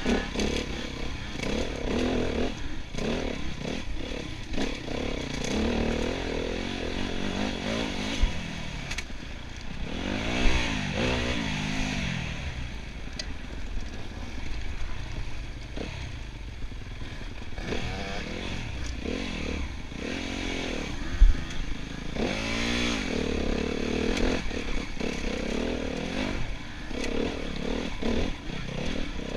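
Enduro motorcycle engine running and revving up and down, with two marked rising-and-falling rev sweeps. Two sharp knocks stand out, about a third and about two-thirds of the way through.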